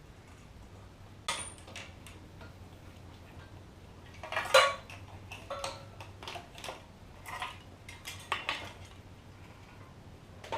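Metal clinking and clanking of scooter parts and tools being handled during disassembly: a string of sharp knocks at uneven intervals, the loudest about halfway through, over a faint steady hum.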